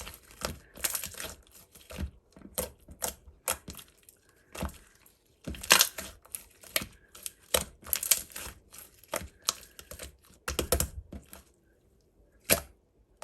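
Slime being worked by hand, giving irregular sharp clicking pops, several a second, as trapped air pops out of it. The clicks stop near the end, followed by one last pop.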